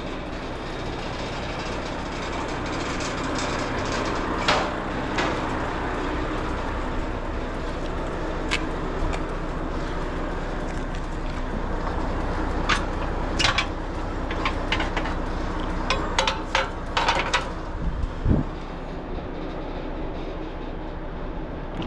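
Steady idle of the car-transporter truck's diesel engine. Over it come sharp metallic clicks and clanks from the trailer's perforated steel deck, a couple in the first half and a quick cluster from about halfway to near the end, then a dull thump.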